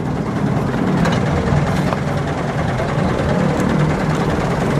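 Truck engine idling steadily, a continuous low hum with no change in speed.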